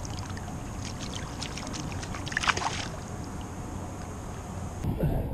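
Water lapping and sloshing against the hull of a boat under a steady low rumble, with small splashes between about one and three seconds in. The character of the sound changes abruptly near the end.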